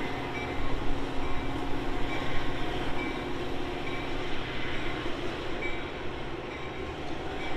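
Metra bilevel commuter train rolling away along the rails, a steady rumble of wheels and cars that slowly fades.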